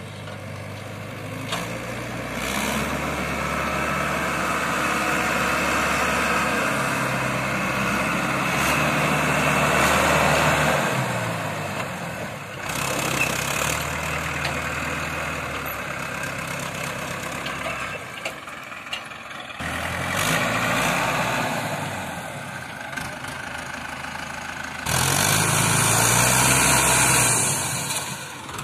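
Mahindra Arjun 605 DI tractor's diesel engine working a loaded trolley through mud, its note rising in several stretches of harder throttle and dropping back in between.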